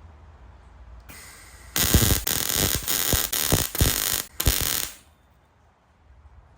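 Welder arc crackling and buzzing as stitch welds are laid on a car's sheet-metal wheel arch: one burst of about two and a half seconds, then a short burst of about half a second.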